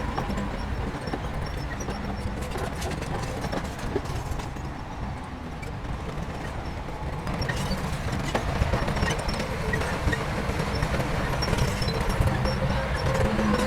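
Heavy diesel earthmoving machinery running steadily with scattered clanks, getting louder about halfway through.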